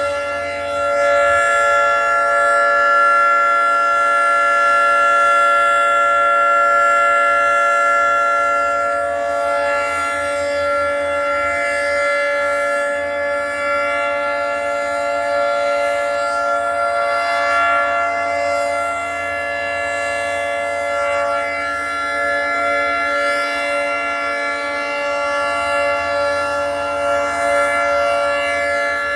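Federal Signal 3T22 three-tone outdoor warning siren sounding a steady chord during a siren test, its pitch held level with no wail. It is louder for the first several seconds, then runs a little quieter.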